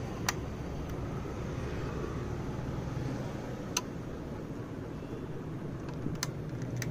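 Steady low rumble with four sharp plastic clicks as the doors and bonnet of a die-cast Mercedes G-Wagon scale model are worked by hand.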